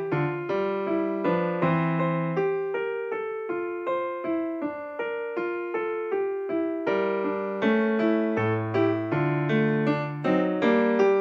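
Background piano music: a gentle melody of single struck notes, about three a second, each ringing and fading.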